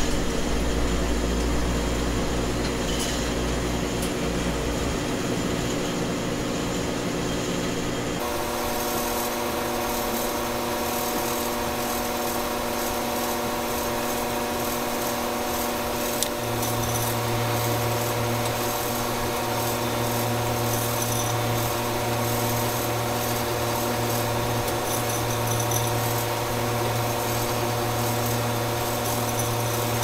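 Steady whirring hum of electric fans and small motors from a Harman pellet stove and an electric heater running together off a battery power station near its maximum load. The pitch of the hum changes about eight seconds in, and a deeper hum joins about halfway through.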